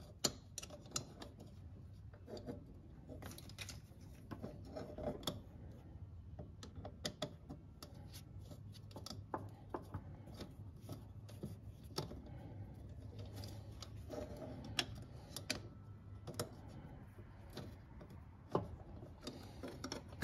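Irregular light clicks and taps of a Phillips screwdriver and small metal fittings being worked by hand, over a faint steady low hum.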